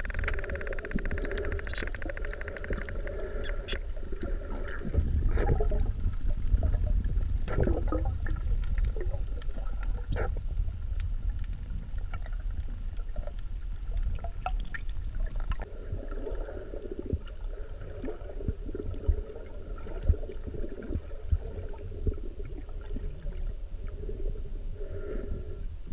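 Muffled underwater sound picked up by a submerged camera: a steady low rumble of water moving around it, with scattered sharp clicks and gurgles. About five seconds in it grows louder for a few seconds.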